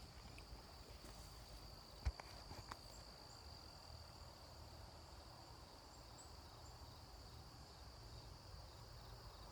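Faint, steady high-pitched insect trill, like crickets, held without a break, with a single sharp click about two seconds in.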